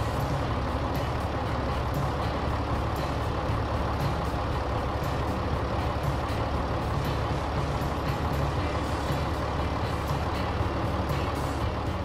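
Heavy tractor engine running steadily, with a constant low engine note under a broad mechanical hiss.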